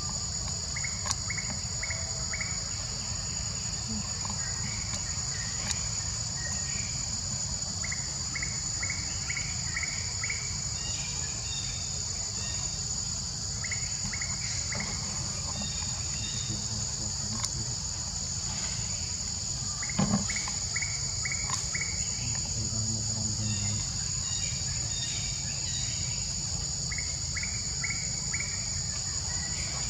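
Steady, high-pitched chorus of insects droning throughout, with short runs of four to six quick chirps recurring every few seconds and a low rumble underneath. A single sharp click comes about twenty seconds in.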